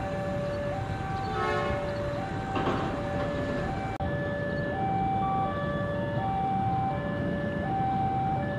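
Two-tone electronic warning alarm alternating high and low, over a steady low rumble of rail or road traffic. A short burst of noise comes a little under three seconds in.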